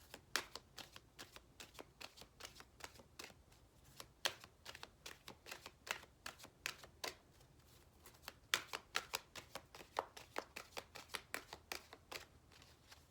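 Oracle cards being shuffled by hand: a long run of quick, irregular card snaps and clicks.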